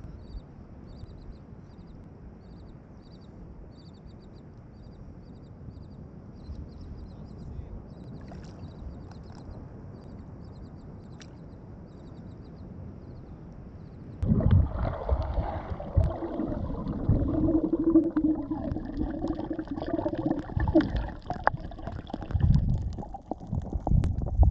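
Water lapping quietly with faint high chirps. About fourteen seconds in, a small boat's motor starts running suddenly and loudly, rough and uneven, with a steady hum for a few seconds.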